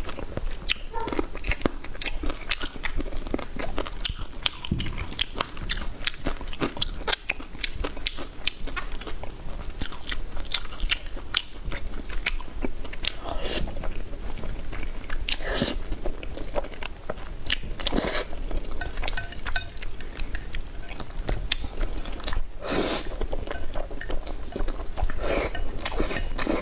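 A person eating crunchy food close to the microphone: steady chewing with many small crackles, and several louder crunching bites spread through.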